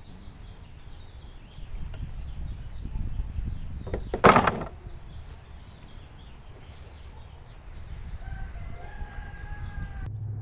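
Handling noise as the camera is picked up and moved, with one loud, sharp sound about four seconds in. A rooster crows faintly in the background near the end.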